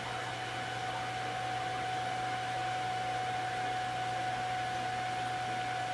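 Anvil Foundry electric brewing system's recirculation pump running during the mash: a steady low hum with a constant thin whine above it and a faint hiss.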